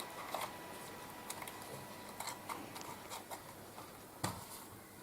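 Light clicks and taps of a small electronic module and its plug-in connector wires being handled, with one sharper click about four seconds in. A faint steady high whine sits underneath.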